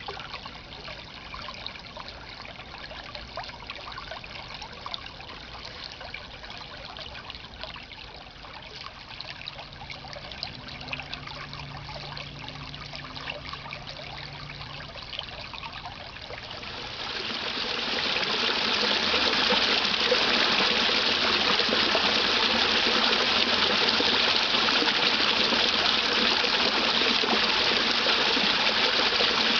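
Creek water trickling over a rocky bed. About 17 seconds in it becomes a louder, steady rush of water from a small waterfall spilling over rocks.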